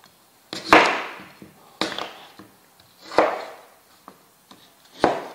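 Four hard knocks spread over a few seconds, each with a short ringing tail: pieces of apple being dropped into a high-speed blender's jug.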